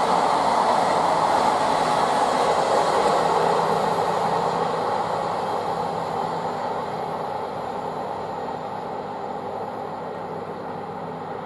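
Wagons of a freight train rolling past on the rails, a steady wheel-on-rail noise that fades gradually as the last wagons move away.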